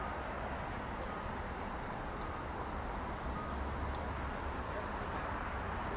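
Steady city traffic noise at a busy intersection, with cars driving through, and a few faint clicks.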